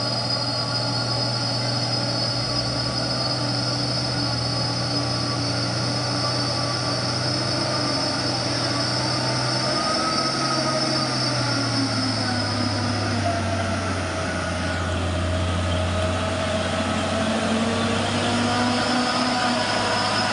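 Diesel engine of a loaded Mitsubishi Fuso truck labouring up a muddy dirt road, its note falling about halfway through. A steady high whine runs over it, then drops away about three-quarters of the way in.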